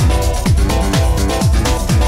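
Electronic dance music with a steady kick drum about twice a second under a synth melody.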